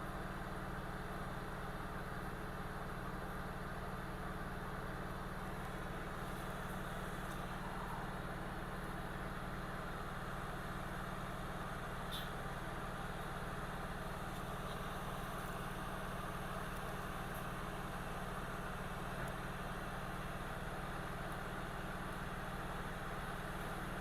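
Steady electrical hum with a fan-like whir from running repair-bench equipment, unchanging throughout, with one faint tick about halfway through.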